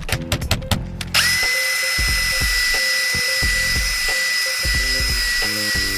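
Small handheld power polisher running at a steady high speed with a constant whine, starting about a second in and running on past the end, buffing a small spot in a car's clear coat.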